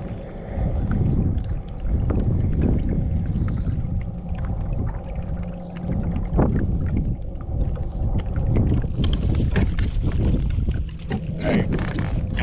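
Kayak out on open water with wind rumbling on the microphone and water lapping at the hull, broken by a few knocks against the boat.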